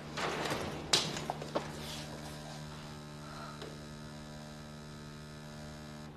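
Steady electrical mains hum with a stack of overtones, with a few light clicks and rustles in the first couple of seconds.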